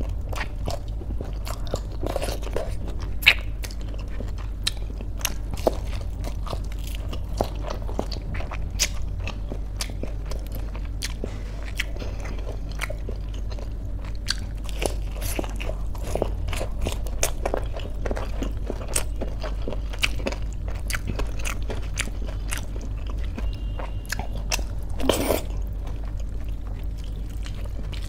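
A person biting and chewing crispy fried pakoras and a raw green chilli close to the microphone: many short, sharp crunches, with a louder crunch near the end.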